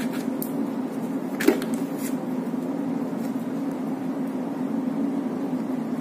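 A steady low mechanical hum, with a single sharp click about a second and a half in.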